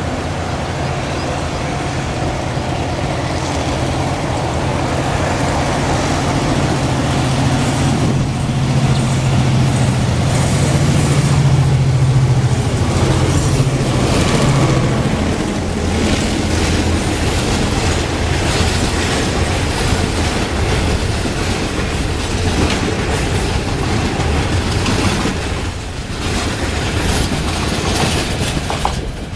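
R20 diesel-electric locomotive's engine drone building as it approaches, then dropping in pitch as it passes about halfway through. Grain hopper wagons follow, rolling by with wheels clicking over the rail joints.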